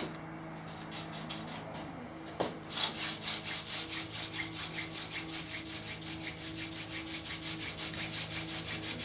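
Sneezeweed hand-drill spindle spun between the palms and rubbing in the notch of a yucca hearth board. It starts about two and a half seconds in as a rapid, rhythmic rubbing of wood on wood at several strokes a second. This is the warming-up stage of friction fire-lighting, as the hearth heats and begins to smoke.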